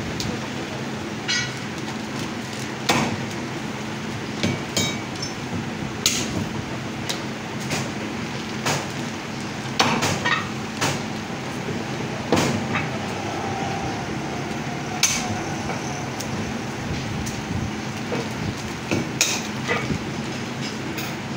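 Butcher's knife and meat cleaver knocking on a wooden stump chopping block while lamb is trimmed: irregular sharp knocks every second or two, some with a brief metallic ring, over a steady low hum.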